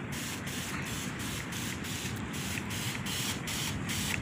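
Steady hiss of liquid being sprayed, with brief regular dips about three times a second.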